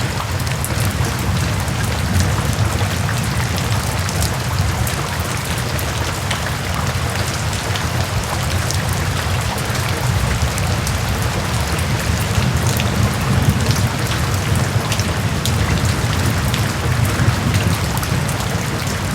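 Steady rainfall: a dense hiss of rain with many individual drops ticking sharply on top, over a low rumble.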